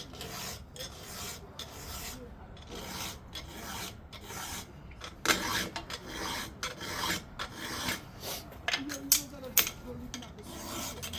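Hand file rasping across the cutter teeth of a chainsaw chain in repeated, uneven strokes, sharpening the teeth by hand.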